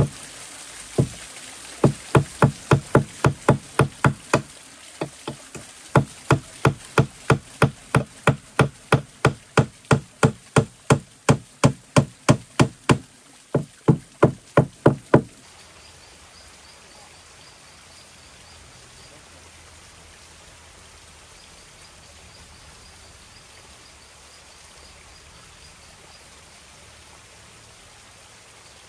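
A hammer striking wood in a quick run of blows, about three a second, with brief pauses about five and thirteen seconds in. It is nailing down boards. The blows stop about fifteen seconds in, leaving a quiet background with faint chirping.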